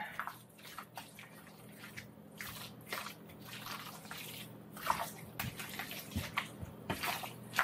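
Spoon stirring potato salad in a large bowl: irregular wet squishing as mayonnaise is worked through chunks of boiled potato, with a few louder strokes.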